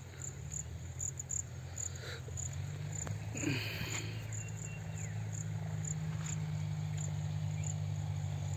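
An insect, likely a cricket, chirping in short high pulses about once or twice a second, over a louder low steady rumble.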